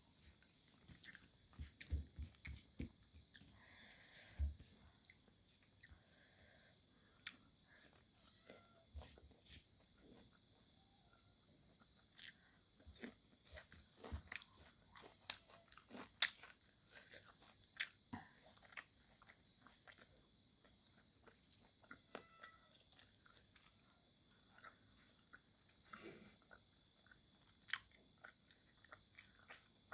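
Faint chewing and mouth clicks of someone eating fried pork, scattered irregularly, over a steady pulsing chirp of insects.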